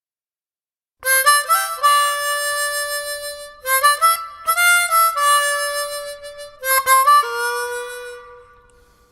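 Harmonica playing a short riff of chords in three phrases, starting after a second of silence. The last phrase ends on a held note that fades away.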